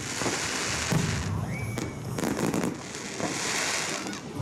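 A fireworks display going off: continuous crackling and popping of bursting shells, loudest about a second in.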